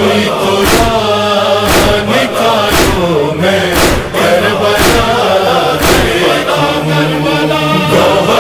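Male voices chanting a noha, an Urdu Shia lament, in long held notes with backing voices joining in, over a steady percussive beat a little under once a second.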